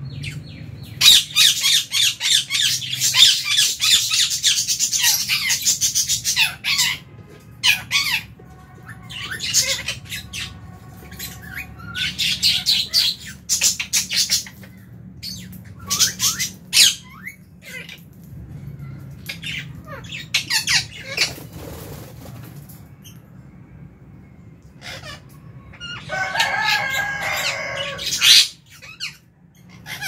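Lovebirds chirping and chattering in rapid high-pitched bursts: a long run in the first several seconds, then shorter bursts, with a lower, harsher chatter near the end.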